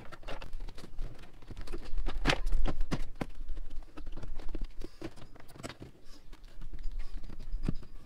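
Plastic door trim panel of a Mercedes W204 front door being pried and pulled off: an irregular run of clicks, pops and knocks from the retaining clips and the panel, over a low rumble.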